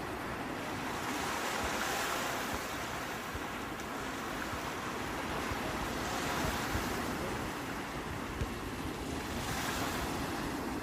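Sea waves breaking and washing ashore: a steady rush of surf that swells about every few seconds.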